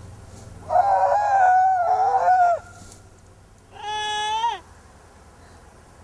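Two long bleating calls. The first wavers for about two seconds; the second is shorter and steadier, dropping in pitch at the end.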